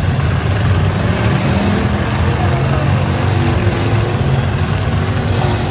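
V8 engines of demolition derby cars running loudly and continuously, a steady low rumble.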